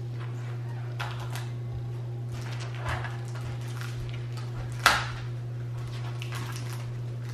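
Paper rustling as pages of a spiral-bound activity book are turned, with a few light knocks on a wooden table; one sharp tap just before the five-second mark is the loudest sound. A steady low hum runs underneath.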